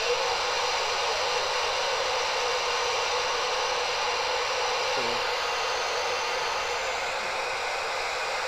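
Steady hiss of shortwave band noise from a software-defined radio receiver tuned to 14.255 MHz, in the 20-metre amateur band, in upper-sideband mode. No station can be heard over the static.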